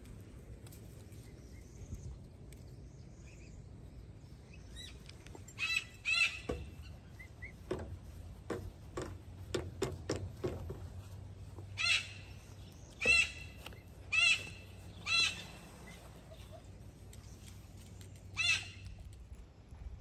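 Black-tailed prairie dogs barking: short, sharp, high calls in small groups, including four about a second apart. A run of soft clicks sounds in the middle.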